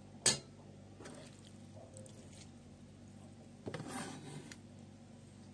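A kitchen knife knocks once sharply on a plastic cutting board. About four seconds in comes a short spell of rubbing and scraping as sliced mushrooms are pushed together on the board.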